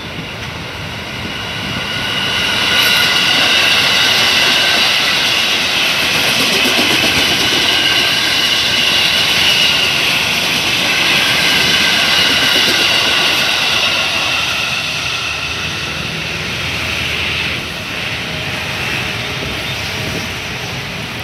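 KRL electric commuter train passing close by: the rush and rumble of its wheels on the rails with a steady high whine over it, louder from about two seconds in and easing off in the last few seconds.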